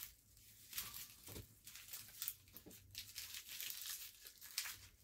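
Faint, irregular crinkling and rustling of packaging being handled.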